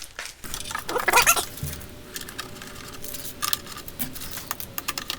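Screws being run in with a ratcheting driver to mount the turn signals, giving quick runs of small clicks from about three seconds in. A short whining sound comes about a second in.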